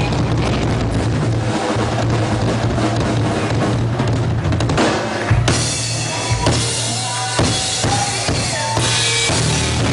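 Live rock band music with the drum kit loudest: bass drum and snare under a steady low bass line. About halfway through, the cymbals come in brighter.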